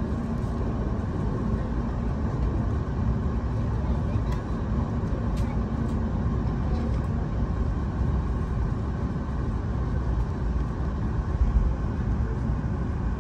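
Cabin noise inside an E7-series Hokuriku Shinkansen car pulling out of the station: a steady low rumble of the train running, with a few faint high clicks about four to six seconds in.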